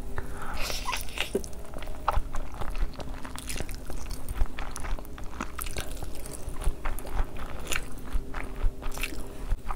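Close-miked eating of spicy instant noodles: a mouthful is bitten and chewed, with dense, irregular wet mouth clicks and some crunching.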